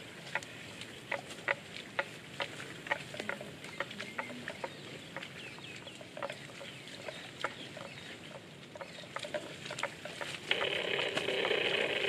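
Water buffalo grazing: a scatter of sharp clicks and snaps of grass being torn and cropped. About ten seconds in, a loud animal call starts and holds for about two seconds.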